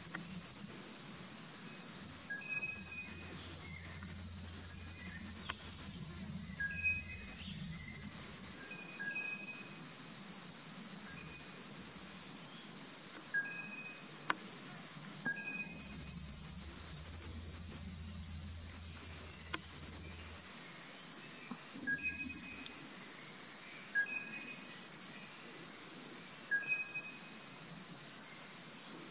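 Steady high-pitched drone of insects in forest, with short two-pitched calls repeating every couple of seconds over it.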